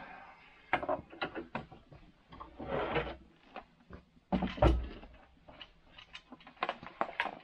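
A chainsaw being freed from a bench vise and lifted off a wooden workbench: a series of metal and plastic clicks and knocks, a short scrape about three seconds in, and a heavy thump about four and a half seconds in.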